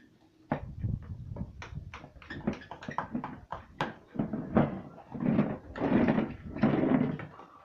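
Homemade glue slime being stirred and worked: a run of short sticky clicks and smacks, then several longer squishy squelches about four to seven seconds in.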